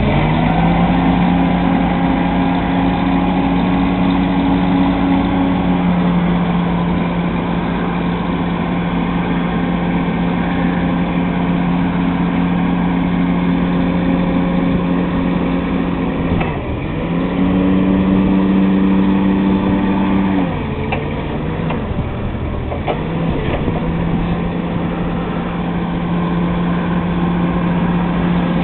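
Propane-fuelled Yale forklift engine running steadily while the mast is raised and lowered. About two-thirds through its note dips, rises again for a few seconds, then sags lower for a few seconds before settling back to its steady pitch.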